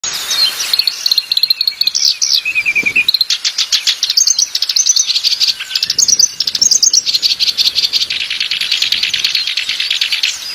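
Small wild songbirds singing: high, fast twittering trills and chirps, with rapid runs of repeated notes and short sweeping notes.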